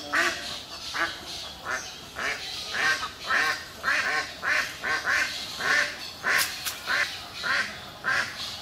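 Ducks quacking in a steady series of calls, about two a second.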